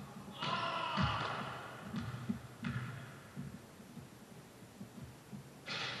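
A basketball bouncing on a gym court floor in a series of irregular thuds. Brief higher-pitched sounds come about half a second in and again near the end.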